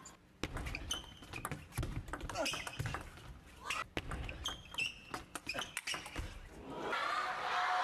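Table tennis rally: sharp clicks of the ball off the bats and the table, with players' shoes squeaking on the court floor. Near the end the point is won and a crowd's cheering swells.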